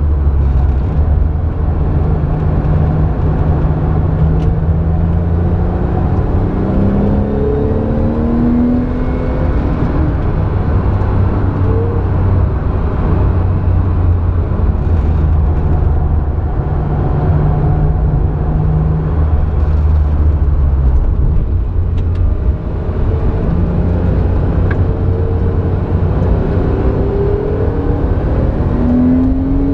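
Porsche 911's flat-six engine heard from inside the cabin at speed: a steady low drone, with the engine pitch climbing as the car accelerates about seven seconds in and again near the end, and a brief drop in loudness in the second half.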